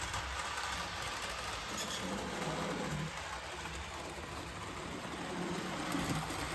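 HO-scale Bachmann 2-8-0 Consolidation model steam locomotive running along the layout track on a test run: a steady, even whir of its small electric motor and wheels on the rails.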